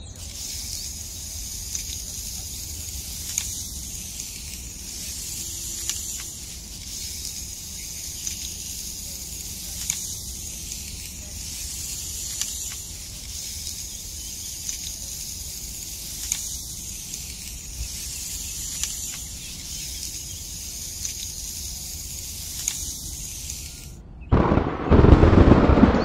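A steady high hiss that swells a little every couple of seconds, with faint clicks now and then. About 24 seconds in, a loud low rumble of thunder breaks in.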